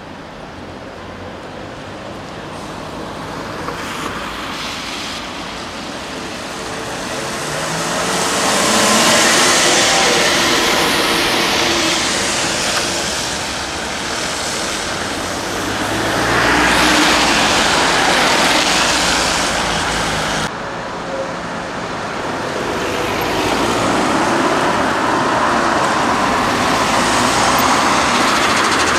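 Road traffic on a wet street: vehicles passing close with tyres hissing on the wet asphalt, among them articulated trolleybuses. The noise swells and fades as each vehicle passes, with a rising motor whine partway through. It drops abruptly about two-thirds of the way in, then builds again as a trolleybus approaches and passes.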